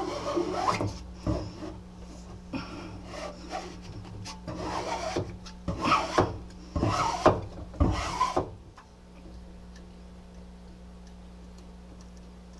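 Plastic scraper dragged in repeated scraping strokes over a vinyl backdrop, pressing it flat against the glass of a tank. The strokes stop about three-quarters of the way through, leaving only a faint steady hum.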